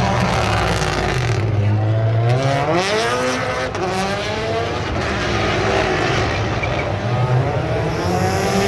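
Rally car engine running low, then accelerating hard: its note climbs steeply about two and a half seconds in and stays high, wavering with the throttle, for the rest.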